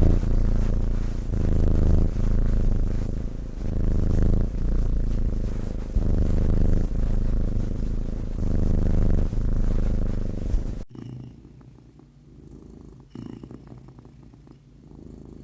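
Domestic cat purring loudly, the purr swelling and easing with each breath about every two seconds. About eleven seconds in it cuts abruptly to a quieter purr.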